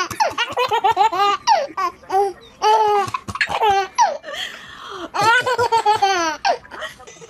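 A baby laughing hard, high-pitched belly laughs in rapid runs of short bursts with brief catches of breath between runs.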